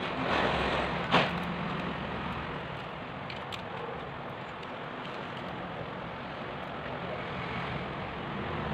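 Handling sounds of an opened smartphone being worked on over a steady background noise: a brief rustle, then a sharp click about a second in, and a few faint ticks later.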